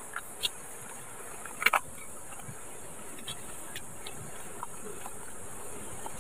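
A steady, high-pitched chorus of insects buzzing, with a couple of short clicks about half a second in and just under two seconds in.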